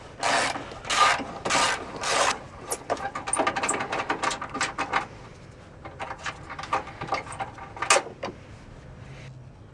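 Socket ratchet backing out the 10 mm bolt of a car battery hold-down: about four rattling ratchet strokes in the first two seconds. After that come lighter metal clicks and scrapes as the loosened bolt and bracket are handled, with one sharp click near the end.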